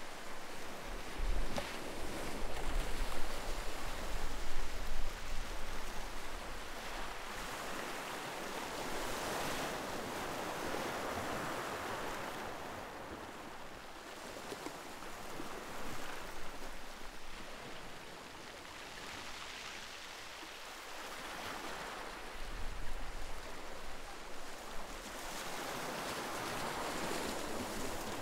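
Ocean surf: waves breaking and washing ashore in slow surges that swell and fade every few seconds. Wind buffets the microphone with low rumbles near the start and again about two-thirds through.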